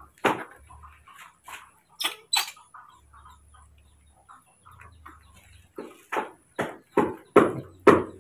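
Baby monkeys giving short repeated calls, sparse and faint at first, then louder and steady at about two or three a second from around six seconds in.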